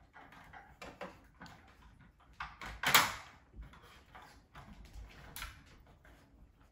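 Two dogs' claws and noses knocking and sliding plastic treat-puzzle toys on a hardwood floor: scattered light clicks and taps, with one louder short clatter about three seconds in.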